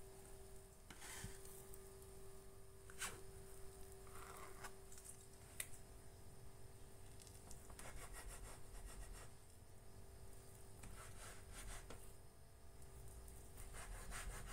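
Faint scraping and rubbing of a plastic bench scraper pressed through soft bread dough against a tabletop, in short repeated strokes with a few light ticks as the edge meets the surface.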